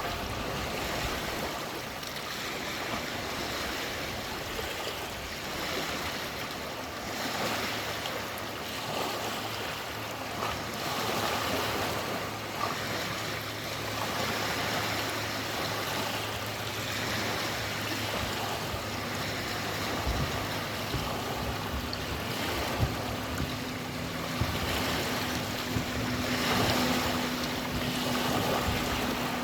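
Lake water lapping and washing at the shore, swelling and easing every few seconds. Under it runs a faint, steady low hum that shifts to a higher steady tone in the last third.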